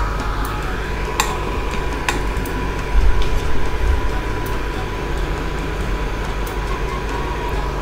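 Kimchi fried rice frying in a nonstick pan on an induction cooktop: a steady hum and hiss with a thin steady whine, as a wooden spatula and metal spoon stir it. A few sharp clicks of the utensils against the pan, and a dull knock about three seconds in.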